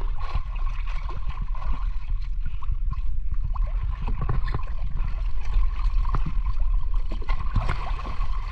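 Sea water sloshing and gurgling over a steady low rumble, with many small irregular clicks and splashes.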